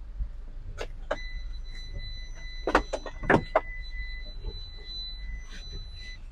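A steady high electronic tone sounds for about five seconds, starting about a second in and cutting off near the end. A few sharp knocks and clicks come around the middle, the loudest two about half a second apart, over a low rumble.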